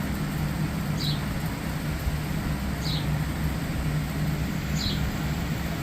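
Steady low hum, with a short high chirp about every two seconds.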